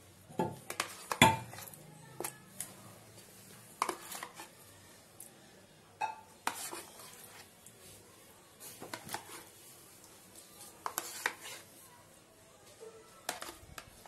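Irregular clinks and knocks of kitchenware against a stainless steel bowl as sour yogurt is added to raw mutton pieces, the loudest knock about a second in.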